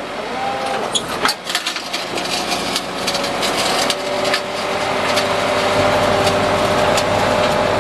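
PTO-driven hydraulic system of a 2005 Ford F650 rollback working the wheel lift, with its 5.9-litre Cummins diesel running: a steady pump hum that grows louder about halfway through, and repeated metallic clicks and knocks from the lift as it moves.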